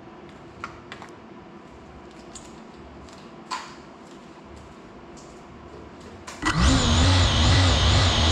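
Faint room tone with a few light clicks and a tap, then about six seconds in a GEPRC CineLog35 cinewhoop's motors spin up sharply into a loud, steady buzzing whine with a wavering pitch as the quad arms and lifts off.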